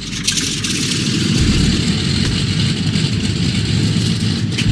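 Curtiss C-46 Commando's radial piston engines running, a dense steady rumble that grows heavier in the low end about a second and a half in.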